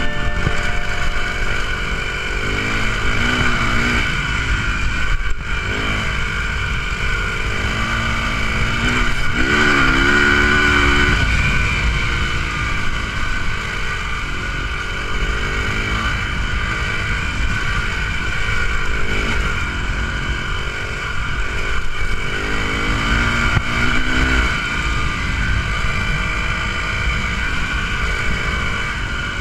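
Single-cylinder dual-sport motorcycle engine running under way, its note rising and falling again and again as the throttle is opened and closed.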